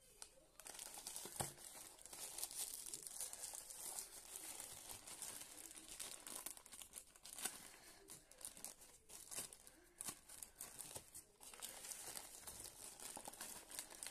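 Plastic courier mailer bag crinkling and tearing as it is handled and pulled open by hand: a dense run of fine crackles with sharp snaps now and then, starting about half a second in.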